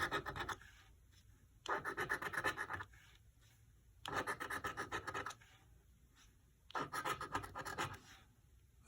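Georgia Lottery Mega Jumbo Bucks scratch-off ticket being scratched off in four short bouts of quick strokes, each about a second long, with brief pauses between.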